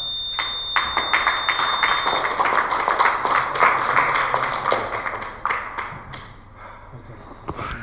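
Gym interval timer beeping its end-of-workout signal, a steady high tone that stops about two seconds in. Over it and after it comes a quick run of sharp taps that thins out about five and a half seconds in.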